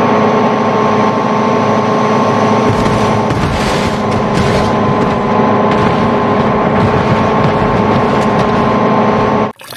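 A steady machine drone with several fixed tones and a hiss over it, cutting in and out abruptly.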